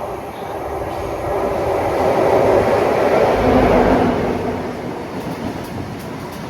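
Diesel train passing close by on the seawall line, growing louder to a peak about halfway through and then fading.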